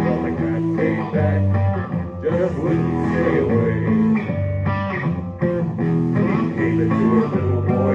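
A band playing live: electric guitar and bass guitar with drums, a steady blues-rock groove.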